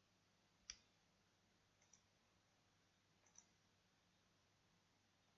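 Near silence broken by a few faint computer mouse clicks: one just under a second in, a quick double click near two seconds, and another a little past three seconds.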